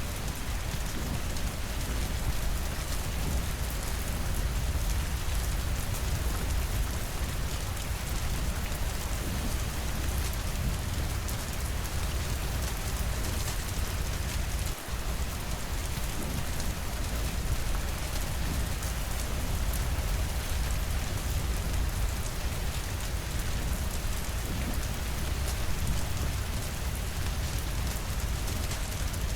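Steady rain falling against windows, with a deep low rumble underneath. The sound dips out for a moment about halfway through.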